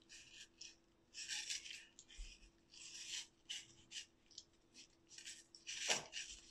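An Alaskan malamute crunching and chewing pieces of apple, a faint run of irregular crunches. Near the end comes one short, louder sound that falls quickly in pitch.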